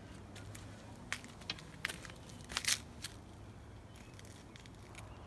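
Short clicks and crackles as the new rear quarter window glass is pressed by hand into its urethane adhesive, with one sharper, louder click near the end.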